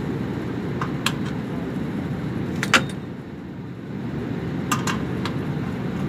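Sharp metallic clinks and clicks from sheet-metal ductwork and its latch being handled, the loudest a bit under three seconds in and a few more near the end, over a steady low rumble.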